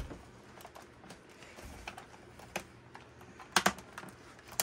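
Hard plastic clicks and knocks from a Dyson V15 cordless vacuum's cyclone and bin being handled and worked at, as its stuck shroud is being pried free. A few scattered clicks, with a close pair of sharper ones about three and a half seconds in.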